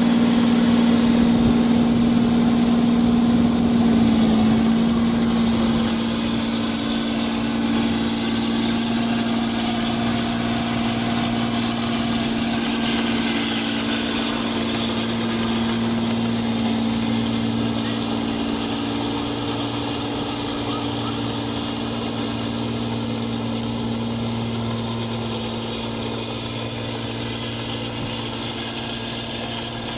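Rice combine harvester's engine running steadily with a strong, even droning hum, slowly fading over the half-minute.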